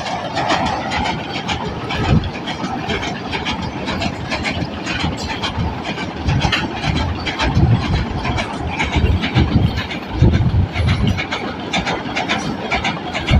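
Loaded coal hopper wagons rolling across a steel truss railway bridge: a steady rumble with rapid wheel clicks and heavier low knocks every few seconds.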